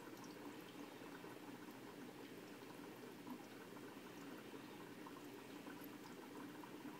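Aquarium water bubbling faintly and steadily, with scattered tiny ticks.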